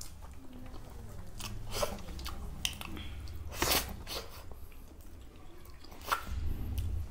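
Mukbang-style close-miked chewing and mouth smacks of people eating rice and curry by hand, with scattered short clicks and scrapes of fingers on steel plates; the loudest smack comes about halfway through.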